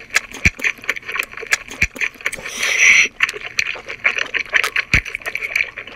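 Close-miked mouth sounds of a person chewing octopus: many quick, wet clicks and smacks, with a short breathy rush of air about two and a half seconds in.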